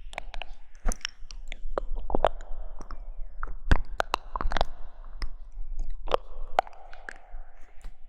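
Close-miked ASMR rustling: a steady run of irregular crisp clicks and crackles over soft rustling, with a low hum underneath.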